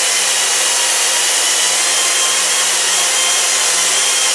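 A power tool's wire wheel running steadily against metal, scrubbing grease and dirt off the mower deck part to prep it for welding, with a steady motor whine under the rasp.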